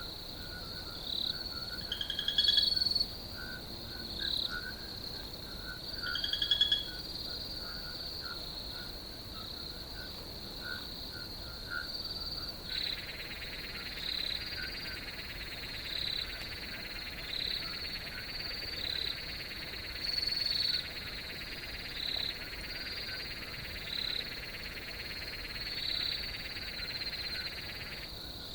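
Night chorus of crickets: a steady high trill with chirps repeating about once a second. Two louder rapid pulsed calls come a few seconds in, and from about halfway a second, lower buzzing trill joins and runs until just before the end.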